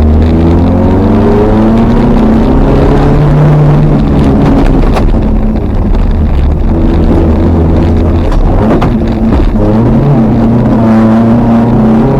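Toyota RAV4's 3S-GE four-cylinder engine heard from inside the cabin, running hard and revving up and down as it is driven off-road, with the pitch dropping around eight seconds in and climbing again. A couple of sharp knocks cut through, about five and nine seconds in.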